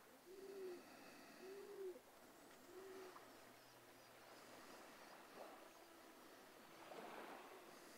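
A bird cooing faintly: three soft, arched hoots about a second apart in the first few seconds, then only faint outdoor quiet.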